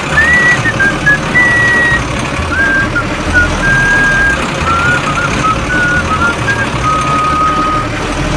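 Background music: a high, thin melody stepping from note to note over a steady low beat, with a dense noisy layer underneath.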